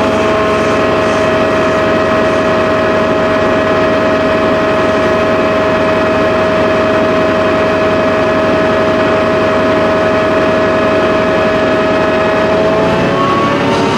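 Class 68 diesel-electric locomotive's Caterpillar V16 diesel running loud and steady at a standstill, with a steady high whine over the engine drone. Near the end the engine note rises as it powers up to pull away.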